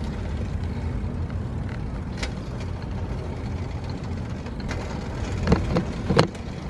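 Steady rumble of wind on the microphone and tyres rolling while riding a rental bicycle. A few sharp rattles from the bike come about five to six seconds in.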